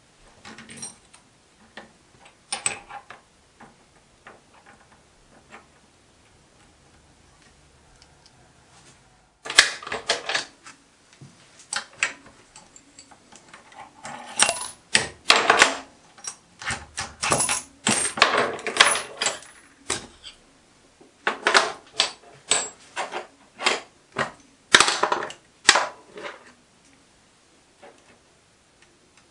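Clicks, taps and clinks of small metal parts being handled and set down on a lathe's cast-iron cross-slide: brackets, a square, screws and hex keys. A few faint clicks at first, then, about a third of the way in, many louder irregular clicks and clatters.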